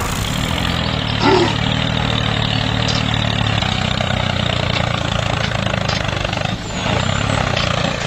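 Tractor engine running steadily with a low, even drone. About a second in, a brief falling squeak rises above it.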